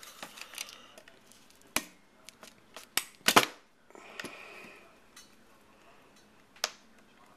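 Small tool prying and scraping at a part on a cordless phone's circuit board to work it loose: scattered sharp clicks and scrapes. The loudest clicks come about three seconds in, with a stretch of scraping just after four seconds.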